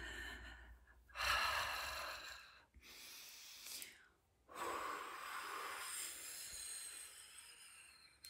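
A woman breathing heavily through her mouth: a loud, gasping breath about a second in, then a long hissing breath, blown through pursed lips, that fades out over the second half.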